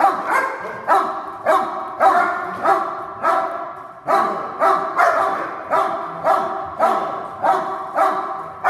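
Two German Shepherds barking steadily at a decoy in a hold-and-bark guard, about one and a half barks a second, each bark echoing in a bare concrete room.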